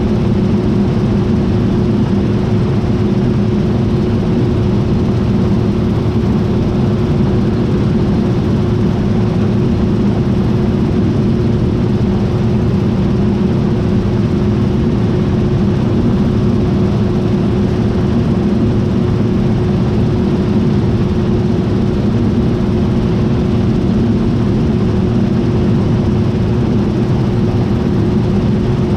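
John Deere T660i combine harvester running steadily: a loud, even machine drone with a constant humming tone that does not rise or fall.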